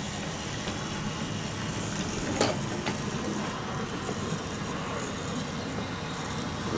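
Battery-powered wooden toy trains running on wooden track, their small motors whirring steadily as the wheels rumble along the rails, with a single sharp click about two and a half seconds in.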